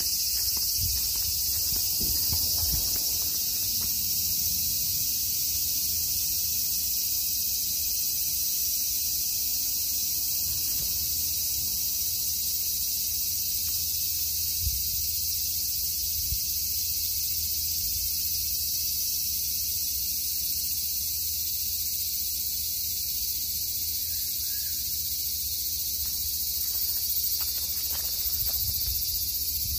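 Steady, high-pitched chorus of evening insects. A few soft low thumps near the start and again near the end.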